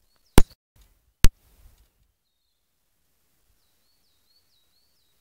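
Two sharp clicks a little under a second apart, then a small bird singing faintly: a short, high phrase repeated over and over, a little more than twice a second, starting about three and a half seconds in.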